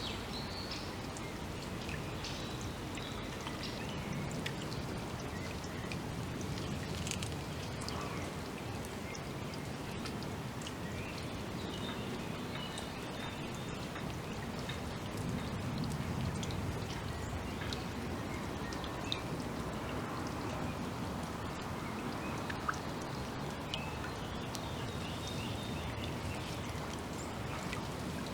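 Forest ambience: a steady background hiss with scattered faint bird chirps and small ticks.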